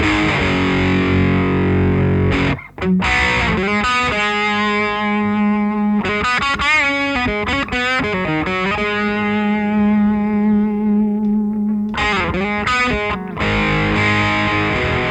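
Electric guitar played through an original 1980s Marshall The Guv'nor overdrive pedal, giving a gritty British overdrive tone. Distorted chords, a short break about two and a half seconds in, then single notes held with vibrato and one long sustained note, before more chords near the end.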